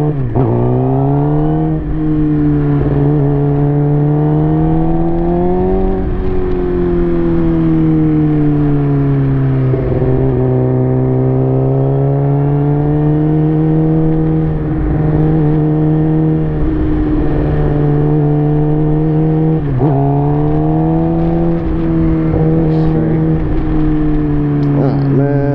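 2007 Suzuki GSX-R inline-four motorcycle engine with an M4 aftermarket exhaust, running under way. Its pitch climbs over the first several seconds, sags, then climbs and holds, with brief sharp dips a couple of seconds in and again around twenty seconds.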